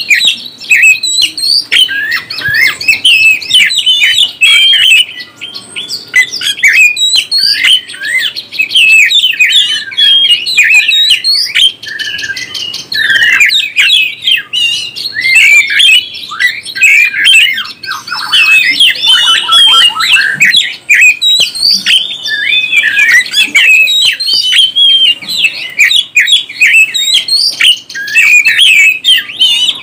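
Oriental magpie-robin (kacer) singing without pause: a fast, varied string of whistled notes that sweep up and down, mixed with harsher calls.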